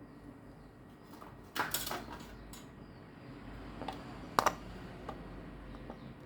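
Kitchen utensils clinking and knocking: a short clatter about a second and a half in, then a few scattered knocks, the sharpest about four and a half seconds in.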